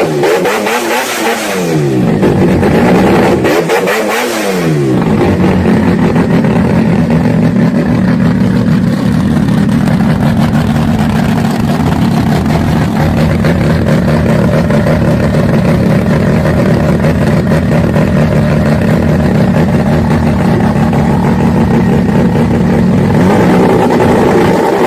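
Twin-turbo engine revved in two quick blips, pitch rising and falling each time, then held steady at raised revs, climbing again near the end.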